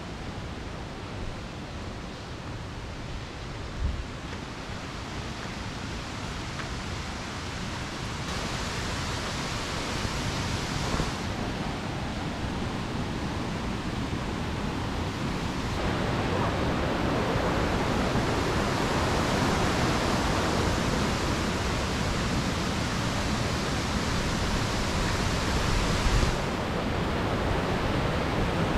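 Mountain valley stream rushing over rocks: a steady, even hiss of flowing water that grows gradually louder and changes level abruptly a few times.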